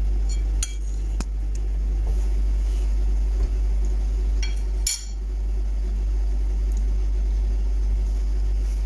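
A steady low hum, with a few light clicks and a short clatter about five seconds in.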